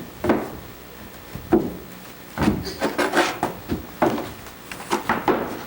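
Irregular knocks and thumps on bare wood, about a dozen spread unevenly, like footsteps and bumps on an unfinished wooden floor.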